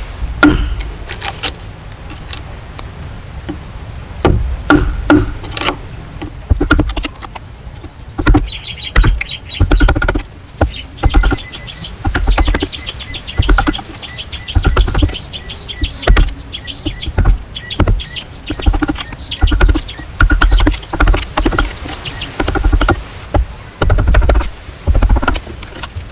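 Repeated dull knocks and thuds of hand work, coming roughly once a second and growing more regular in the second half. From about eight seconds in, a bird sings in fast, high chirping trills over them.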